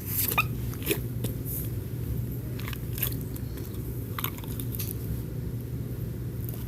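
Handling noise: scattered small clicks and crackles over a steady low hum.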